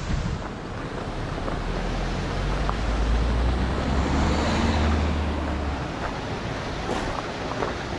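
Wind buffeting the microphone, with a low rumble that swells for a few seconds in the middle.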